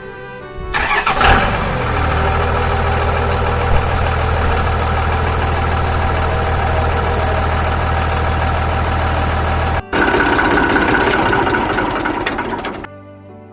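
New Holland tractor's diesel engine running steadily, with a brief rise in revs about a second in. The sound breaks off abruptly a couple of times at edits, and near the end quieter music takes over.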